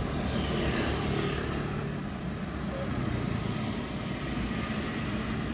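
Steady engine and road rumble of a slowly moving car, heard from inside the cabin, with street traffic around it.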